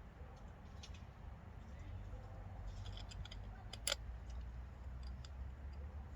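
Small metallic clicks and taps of screws and a hand tool on a motorcycle carburetor being reassembled with new screws: a quick cluster about three seconds in and one sharper click about four seconds in, over a faint low rumble.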